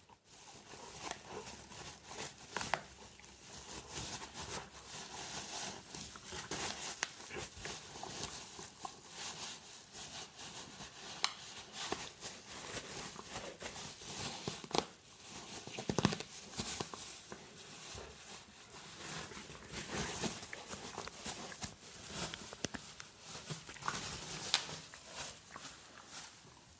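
A dog biting bubble wrap: continuous plastic crinkling and rustling, with sharp pops of bursting bubbles scattered through it, several louder than the rest.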